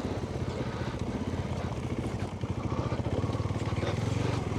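Adventure motorcycle engine running at low revs with a fast, even pulse, picking up slightly about halfway through, with a few faint knocks and rattles.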